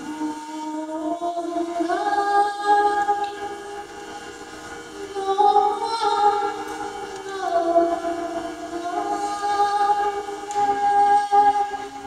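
A woman singing a slow melody in long held notes that slide between pitches, over a steady drone from an organistrum, a large medieval hurdy-gurdy.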